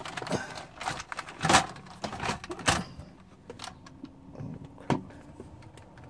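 Alpine car stereo head unit and its plastic dash surround being pushed back into the dashboard: a quick run of knocks, clicks and plastic scraping in the first three seconds, then a few single knocks.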